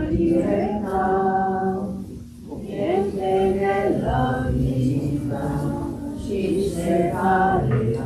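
Choir singing a church hymn in long held notes, phrase by phrase, with a brief breath break about two seconds in and another about six seconds in.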